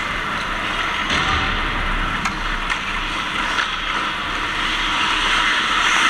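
Ice hockey play heard from beside the net: a steady hiss of skates on the ice and rink noise, with two sharp clicks a little past two seconds in.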